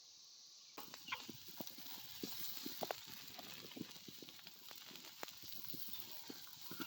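Ribeye steaks cooking over a campfire: irregular crackling and popping over a steady hiss, starting about a second in.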